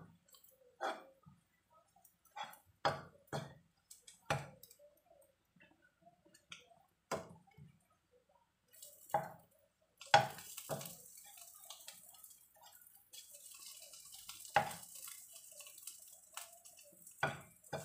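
A spatula knocking and scraping against a nonstick wok as shrimp are stirred in oil, in irregular strokes. About halfway through, a steady sizzle of the frying oil comes up under the strokes.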